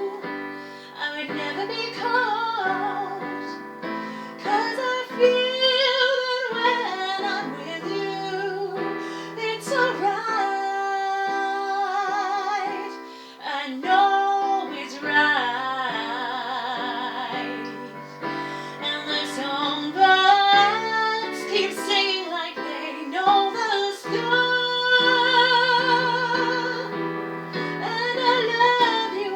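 A woman singing a slow ballad, holding notes with vibrato, over piano accompaniment.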